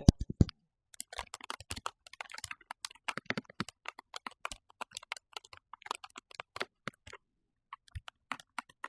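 Typing on a Keychron K4HE mechanical keyboard with magnetic Hall-effect switches: quick runs of key clicks that pause briefly near the end before starting again. A few dull knocks come right at the start.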